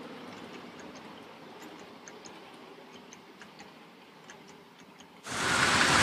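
A miniature ride-on train running away along the track, its sound fading, with faint light ticking a few times a second. About five seconds in, the sound cuts suddenly to a much louder, steady rushing noise from another ride-on train running past.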